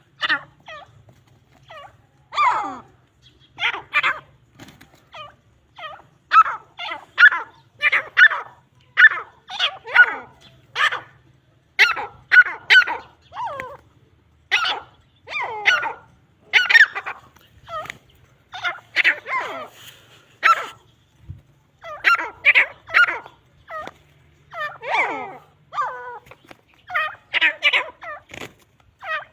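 Grey francolins calling: harsh, loud, repeated notes, a few each second in bursts broken by short pauses, the challenge calls used to provoke fighting.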